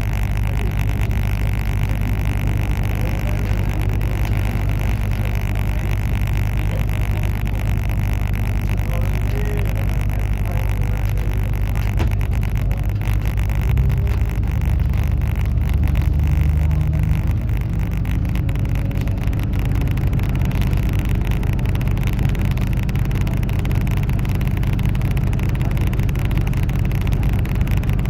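Passenger train running, heard from aboard a locomotive-hauled Eurofima coach: a steady, loud rumble and drone of the running gear on the rails. A deeper drone swells for a few seconds about halfway through, then settles.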